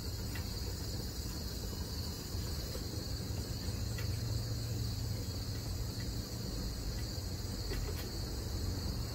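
Steady high-pitched chirring of insects, with a low steady rumble beneath from the propane griddle burners heating a lidded cast iron pot of boiling water.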